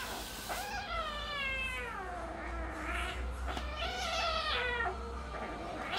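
Cat yowling while play-fighting with another cat: two long drawn-out wailing meows, the first about half a second in and falling in pitch, the second around four seconds in, with a short cry between them.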